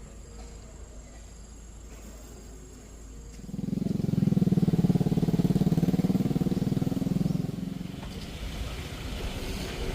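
A motorbike engine running loud and close for about four seconds, starting about three and a half seconds in, then easing off. Before it there is only a low steady hum.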